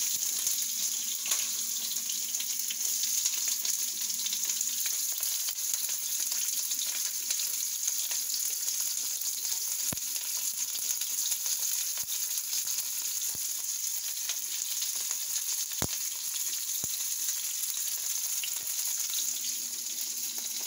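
Sliced onions and peppers frying in oil in a nonstick pan: a steady sizzling hiss, with a few sharp clicks in the second half.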